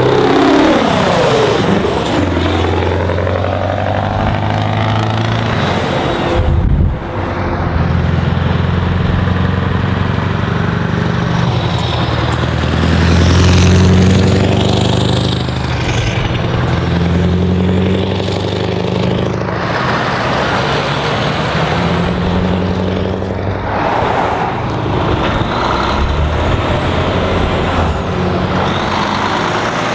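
Diesel engines of heavy trucks pulling away and driving past one after another. The first truck's engine note drops in pitch as it passes close, and a second truck passes loudest about halfway through.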